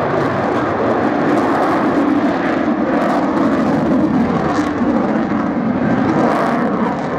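F-22 Raptor's twin Pratt & Whitney F119 turbofans giving a loud, continuous jet roar, steady throughout, as the fighter pulls up steeply and then rolls into a banked turn.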